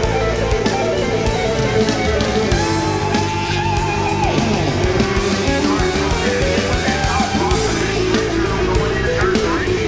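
Heavy rock music with electric guitar over a steady drum beat.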